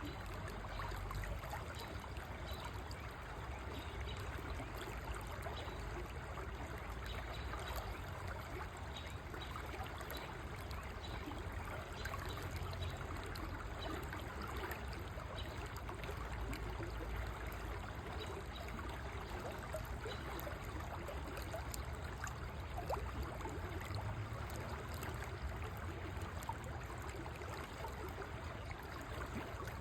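River water flowing steadily, an even trickling rush with no breaks.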